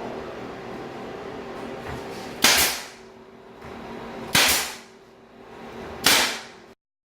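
A nail gun, most likely a pneumatic brad nailer, fires three times about two seconds apart while fastening trim. Each sharp shot trails off over about half a second.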